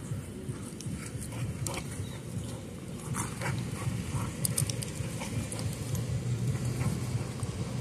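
A dog chasing a flirt-pole lure on grass: scattered short scuffs and dog sounds over a steady low rumble.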